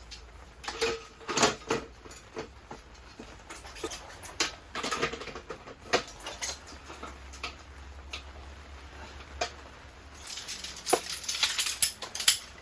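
Irregular light clicks, taps and rustles of camping gear being handled during tent setup, with a busier flurry near the end.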